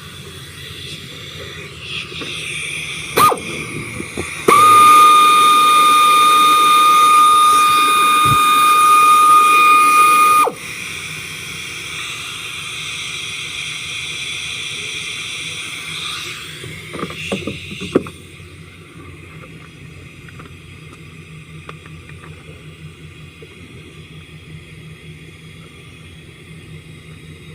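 Engine running with a misfire on cylinder 5, put down to a collapsed valve lifter and a worn-out camshaft. A loud, steady high-pitched tone cuts in about four seconds in and stops abruptly some six seconds later, with a few sharp clicks before and after it.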